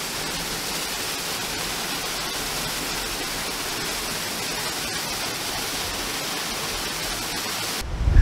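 Steady rush of a small waterfall plunging into a rocky gorge. Near the end the rush cuts off suddenly, and a low gust of wind buffets the microphone.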